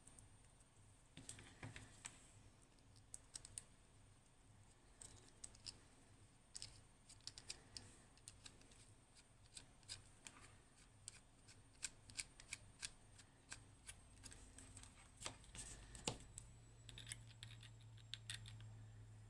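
Quiet, irregular small clicks and taps of small metal parts and hand tools being handled, over a faint low hum.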